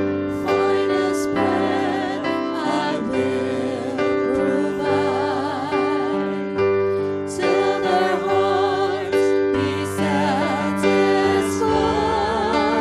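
Gospel worship song: a piano or keyboard plays sustained chords under a sung melody.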